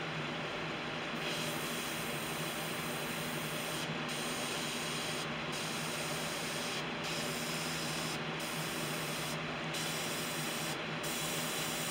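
Iwata airbrush hissing as it sprays small gray dots of paint onto a jerkbait. The hiss starts about a second in and breaks off briefly six times, roughly every second and a half, over a steady low hum.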